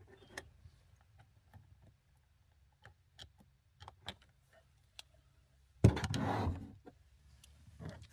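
Light scattered clicks and taps of multimeter test probes and crimped wire terminals being handled on a cutting mat. About six seconds in comes a brief, louder knock and rustling clatter as the wire and tools are picked up.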